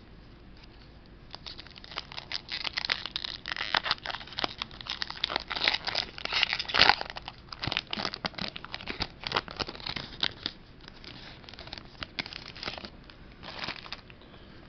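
Foil wrapper of a Pokémon trading card booster pack being torn open and crinkled. A dense run of crackling starts about a second and a half in and thins out near the end.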